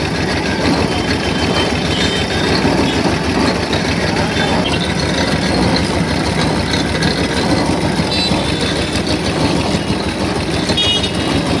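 Engine of a street sugarcane-juice crushing machine running steadily, with an even, fast pulse, amid voices of people around the stall.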